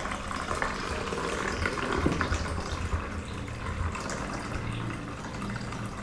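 Water poured from a jug into the plastic water tank of a drip coffee maker, a steady splashing fill.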